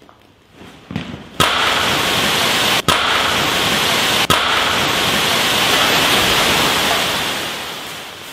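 Molten iron struck with a shovel and thrown into a shower of sparks: a sudden loud onset about a second and a half in, then a dense hiss of spraying and landing sparks that holds for several seconds, broken twice by a very brief drop, and fades near the end.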